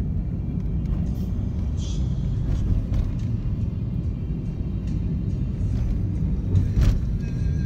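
Steady low road and engine rumble inside a moving car's cabin, with faint music playing. There is a brief louder thump near the end.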